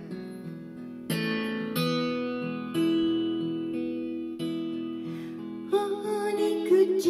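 Acoustic guitar karaoke backing track playing gently: about five chords struck a second or so apart, each left to ring and fade.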